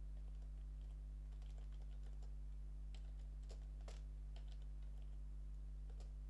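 Typing on a computer keyboard: scattered, irregular keystrokes over a steady low hum.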